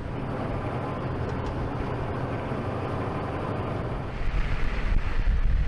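Military Humvee diesel engines running, with wind noise on the microphone. About four seconds in the sound gets louder, with a heavier low rumble and more wind as from inside a moving vehicle.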